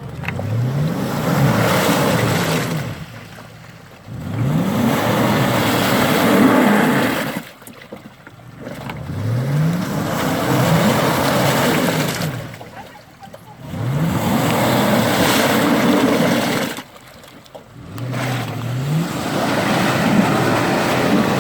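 Off-road SUV engine revved hard in five bursts of a few seconds each, its pitch climbing at the start of every burst over a loud rushing noise, with short easings of the throttle between. This is a vehicle being driven through a mud obstacle.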